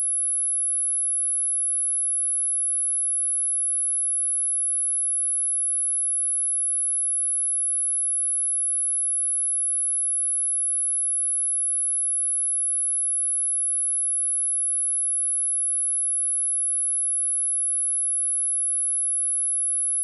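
A single pure sine tone at 10951 Hz, a steady high-pitched whistle held at constant level: a speaker test tone, also used to vibrate water and dust out of a phone speaker.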